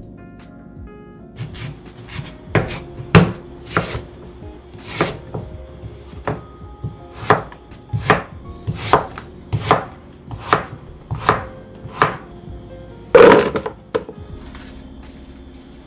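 Kitchen knife chopping vegetables on a cutting board in slow, even strokes, about one every three quarters of a second, ending with one heavier knock near the end.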